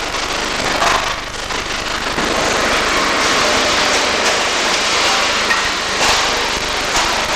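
Electric arc welding: a steady, irregular crackling hiss from the arc.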